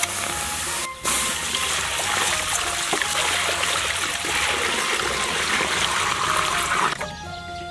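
A stream of water pouring steadily into a large metal stockpot and splashing over the meat inside. It begins about a second in and stops shortly before the end.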